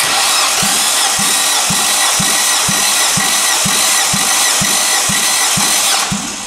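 Nissan HR16DE 1.6-litre four-cylinder engine turned over on its starter motor for a compression test of one cylinder: a steady cranking din with a low pulse about twice a second, dying away about six seconds in. The cylinder reads about 16 kg/cm², a healthy compression.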